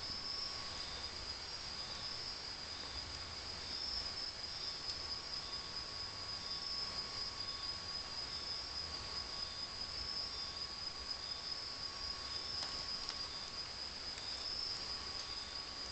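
Steady chorus of night insects trilling high-pitched, with a fainter chirp repeating a little faster than once a second and a thin steady whine lower down.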